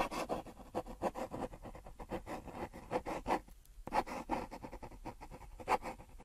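Pencil sketching on paper: a rapid series of short scratching strokes in two runs, with a brief break a little past halfway.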